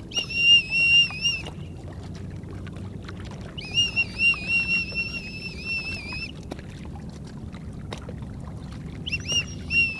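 Safety whistle blown in three blasts, each with a warbling trill: a short one at the start, a longer one from about three and a half seconds in, and a brief one near the end. It is blown as a call for help.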